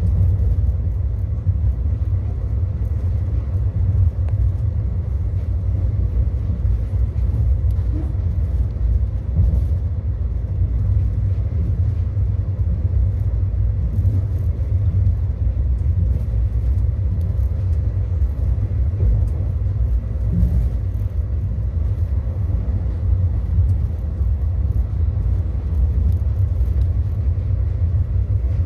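Steady low rumble of an ICF passenger coach running at speed, heard from inside the coach: wheels on rail and the bogies under the floor, with faint scattered ticks over it.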